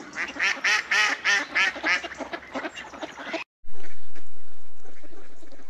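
A flock of hungry mallard ducks quacking, waiting to be fed: a fast run of repeated quacks, about three a second, that cuts off suddenly about three and a half seconds in, leaving only faint background noise.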